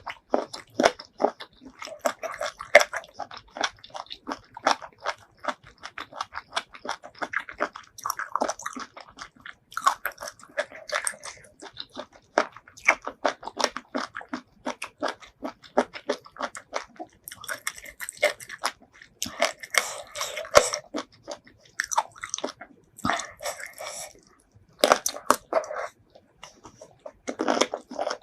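Close-miked mouth sounds of a person chewing and biting seafood: rapid wet clicks and crunches, continuous with a few brief pauses between bites.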